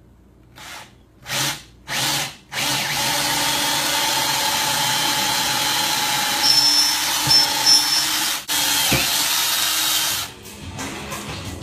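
Power tool switched on in three short bursts, then held running steadily for about seven seconds with a brief break partway, stopping shortly before the end.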